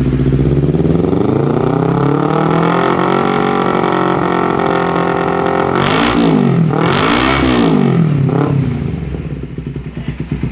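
Four-stroke Kawasaki Ninja motorcycle with an Andorbone aftermarket exhaust being revved while standing. The engine climbs to a held rev, then gives two sharp throttle blips and a smaller third before dropping back toward idle.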